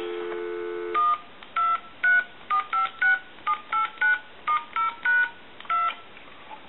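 Dial tone from a Harris TS22 lineman's butt set, cut off about a second in as a string of about a dozen touch-tone digits is keyed in, each a short two-note beep, on the set's freshly repaired dialing keypad.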